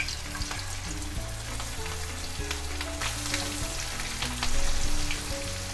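Masala-coated fish pieces shallow-frying in hot oil in a pan: a steady sizzle with small crackles and spits of oil. The sizzle swells louder for about a second near the end.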